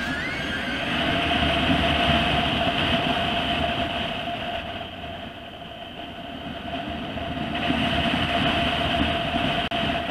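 A vehicle running at a steady speed: a held engine tone over road rumble and rushing noise. It grows louder about two seconds in, eases off around the middle, and swells again near the end.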